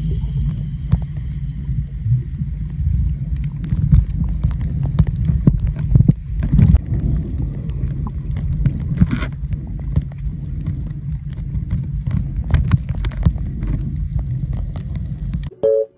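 Sound picked up by a camera held underwater while snorkeling: a heavy, muffled water rumble with many sharp clicks and crackles scattered through it. It cuts off suddenly just before the end.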